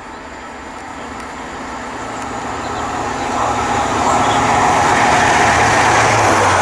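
GWR Class 43 HST diesel power car approaching, its engine drone and rail noise growing steadily louder.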